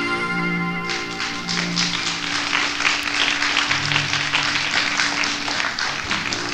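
A rock band's final chord rings out on an old live cassette recording, then audience applause breaks in about a second in, while a single held note keeps sounding under the clapping until near the end.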